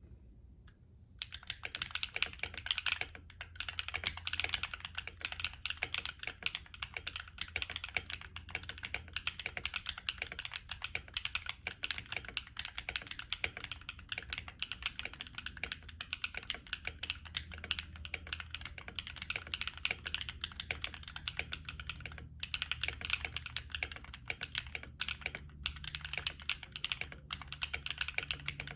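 Typing on a Womier K66 stacked acrylic mechanical keyboard with stock Akko Cream Yellow Pro linear switches, ASA profile keycaps and a tape mod: a fast, continuous run of key presses starting about a second in, with a couple of brief pauses.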